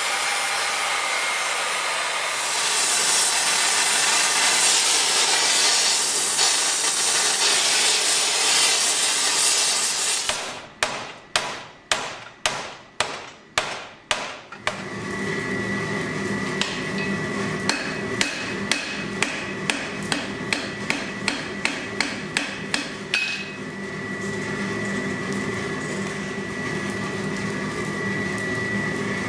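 Hand hammer striking steel on an anvil while forging large blacksmith's tongs. Loud steady rushing noise comes first, then about eight sharp ringing blows roughly two a second, then a longer run of lighter, evenly spaced blows over a steady hum.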